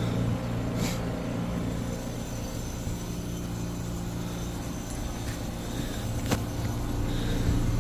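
Heat pump outdoor unit running with a steady low hum, its compressor and fan working again now that the bad capacitor has been replaced. A sharp click about six seconds in.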